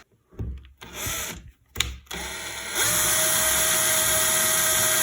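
Small lathe: a few brief knocks, then about three seconds in the motor spins up and runs steadily with an even whine, turning a plastic sleeve down to 5 mm.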